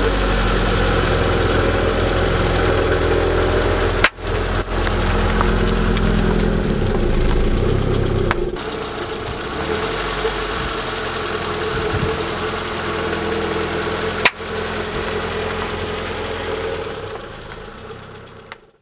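A car engine running slowly and steadily, with sharp clicks or breaks about four seconds in and again about fourteen seconds in. It fades out near the end.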